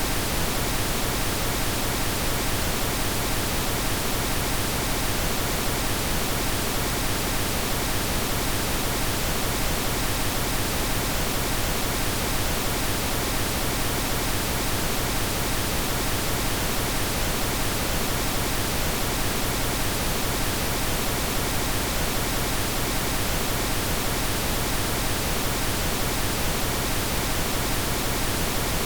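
Steady synthetic pink noise: an even, unchanging hiss spread across the whole range of pitch.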